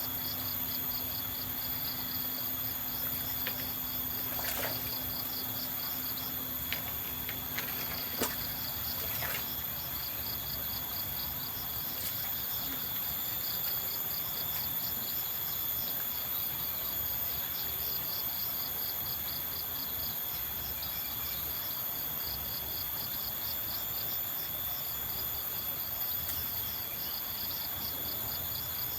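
Insects, crickets among them, chirping in a fast, even pulse over a steady high-pitched drone that lasts throughout. A faint low hum fades out about ten seconds in, and a few light clicks come in the first ten seconds.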